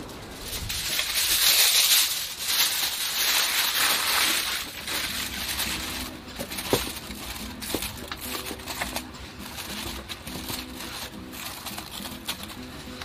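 Aluminium foil crinkling as it is laid over a metal roasting tray and crimped around the rim. It is loudest for the first few seconds, then turns to quieter rustles with scattered light clicks.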